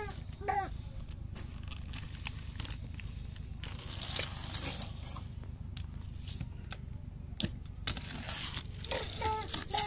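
Small plastic toy vehicles being handled and pushed on a wooden board: scattered clicks, scrapes and rustles over a steady low background hum.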